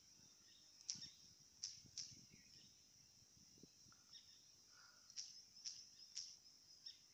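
Faint taps of typing on a phone's on-screen keyboard: a few short, sharp clicks, three in the first two seconds and another run of them in the last two seconds, over a low hiss.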